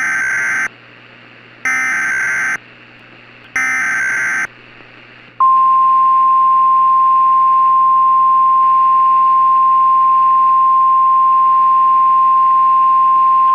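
Emergency Alert System SAME header: three short, buzzy data bursts about two seconds apart. About five seconds in, the NOAA Weather Radio 1050 Hz warning alarm starts, one loud steady high tone. Together they announce a severe thunderstorm warning.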